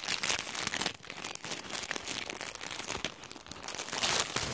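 Clear plastic wrapping of a Pokémon card triple booster pack crinkling as it is handled and torn open by hand, with a louder burst of crackling near the end.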